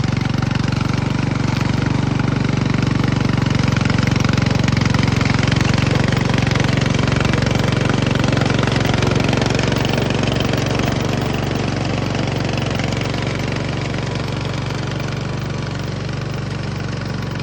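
Small 7.5-horsepower petrol engine of a remote-control hybrid mower running steadily, driving the cutting blades and charging the battery. Its steady drone eases off slightly near the end.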